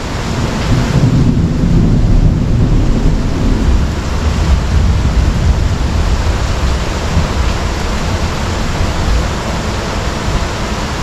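Heavy thunderstorm downpour, rain pouring steadily, with a low rumble of thunder in the first few seconds.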